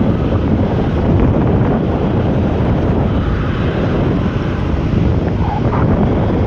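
Strong wind buffeting the microphone in a steady, gusty rumble, with a jet aircraft's engine noise underneath.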